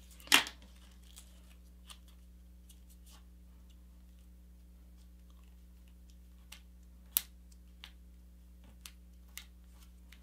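Sheet of paper being folded and creased by hand on a cutting mat: sparse faint crinkles and clicks, with one sharper tap just after the start and a clearer crackle about seven seconds in.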